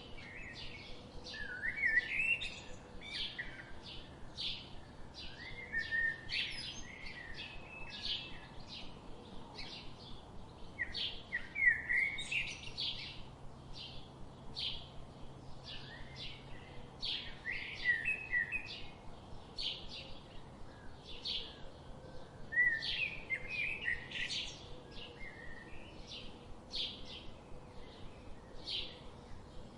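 Songbirds singing: a steady run of short high chirps, about two a second, with a second bird's lower warbling phrases breaking in every few seconds.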